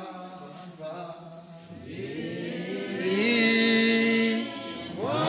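Unaccompanied chant-like church singing, voices holding long notes; the loudest held note comes about three seconds in and lasts over a second.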